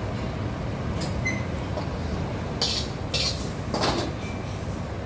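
A metal ladle clinking and scraping against a stainless stockpot and its wire-mesh strainer, three or four sharp clatters in the second half, over a steady low rumble of commercial kitchen equipment.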